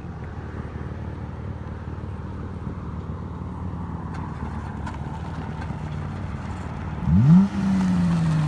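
Dodge Challenger exhaust with the mid muffler and rear resonator deleted, idling steadily, then revved once about seven seconds in: the pitch climbs sharply and falls back to a fast idle.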